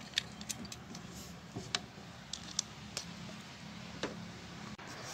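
Light, irregular metallic clicks and clinks of a socket ratchet and socket working bolts on an engine's timing chain guide, over a faint steady low hum.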